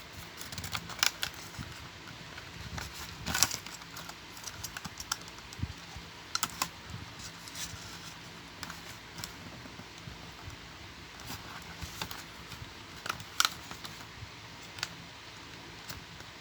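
Hard plastic blister pack being pried and peeled off the card of a Hot Wheels die-cast car, giving irregular sharp plastic clicks and crackles.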